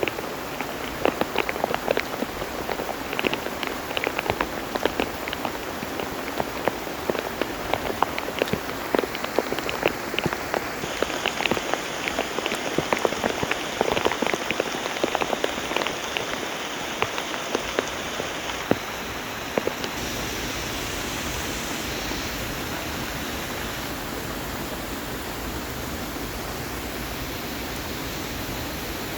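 Heavy rain falling, with many sharp, close drop hits over the first two-thirds, settling into a steadier, even hiss.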